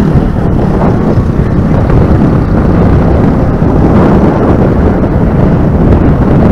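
Wind buffeting the action camera's built-in microphone on a moving motorcycle, a loud, steady rumble with the bike's engine and road noise mixed in underneath.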